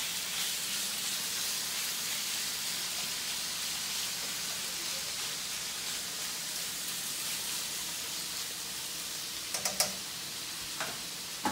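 Raw chicken pieces sizzling steadily in hot oil and garlic in a skillet. A few sharp taps come near the end.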